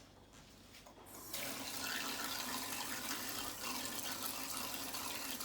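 Hot water running from a tap into a plastic measuring cup, starting about a second in and then flowing steadily.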